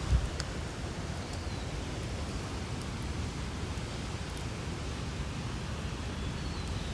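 Steady outdoor hiss with a low rumble underneath, a dull thump just after the start, and a few faint ticks.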